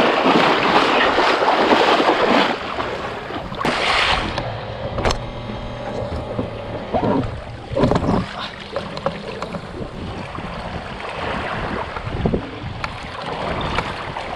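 Water splashing loudly as a hooked black marlin thrashes against the side of a boat, heaviest in the first couple of seconds, with further bursts of splashing around four and eight seconds in. After that it settles to quieter sloshing of water along the hull.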